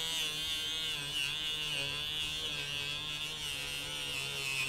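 A small handheld rotary pet nail grinder, a cheap low-torque Dremel-style tool, runs with a steady buzzing whine while its small bit grinds the wood of a gunstock. The pitch wavers slightly as the bit is pressed in.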